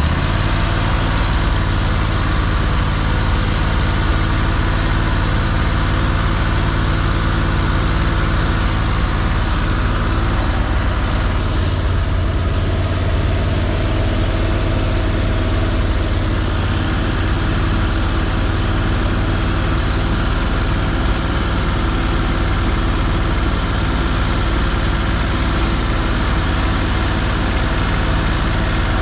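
An engine idling steadily: an even low hum with no change in speed.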